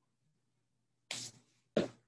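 Quiet, then a short rustle about a second in and a louder, sharper bump just before the end.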